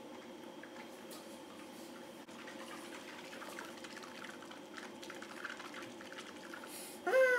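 Coconut oil being swished around a closed mouth during oil pulling, with faint wet swishing sounds. Near the end comes a short, louder hum through closed lips that rises in pitch.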